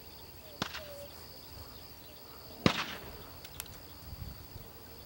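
A single sharp crack about two and a half seconds in, the report that signals the mark being thrown for the retriever. It is preceded by a fainter click and followed by a light tick, over a steady high buzz of insects.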